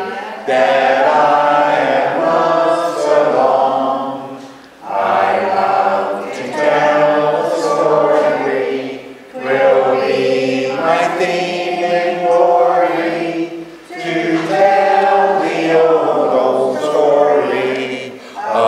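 A congregation singing a hymn together, in phrases of about four to five seconds with short breaks between them.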